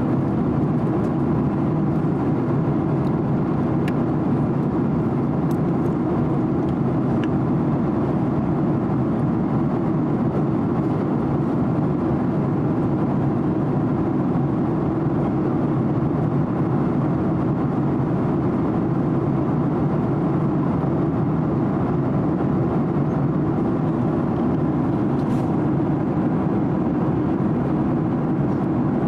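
Steady cabin noise of a Boeing 767-300 airliner in cruise, heard inside the cabin at a window seat beside the engine: an even, unbroken rumble of jet engine and airflow.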